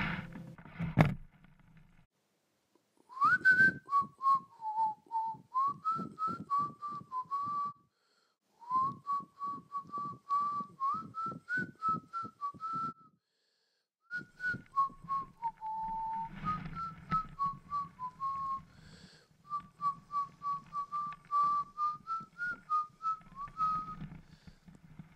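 A person whistling a melody in phrases with short pauses between them, over a steady rhythmic strummed guitar accompaniment.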